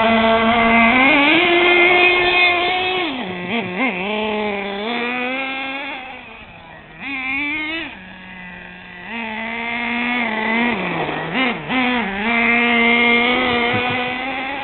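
Nitro RC truck's small glow-fuel engine running and revving, its high-pitched note rising and falling with the throttle and several quick blips. It fades in the middle and grows louder again near the end as the truck drives away and comes back.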